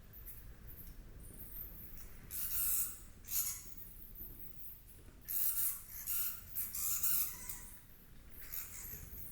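A small animal giving about six short, hissy squeaks in irregular succession over a faint low background.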